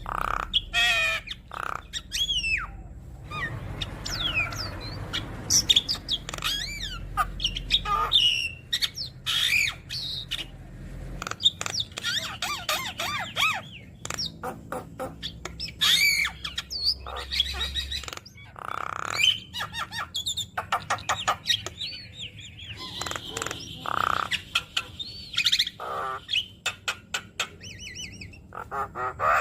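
Javan myna singing a long, varied song: quick whistles that rise and fall, harsh squawks and rapid stuttering chatter, strung together from many mimicked phrases.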